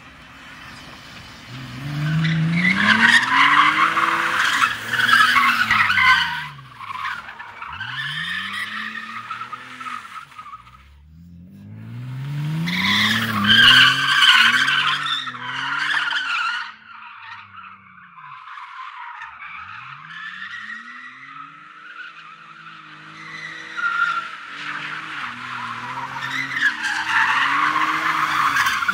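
BMW E46 coupe drifting: the engine revs rise and fall over and over while the tyres screech in three long loud bouts, starting about two, twelve and twenty-four seconds in. Between the bouts the engine is heard more faintly.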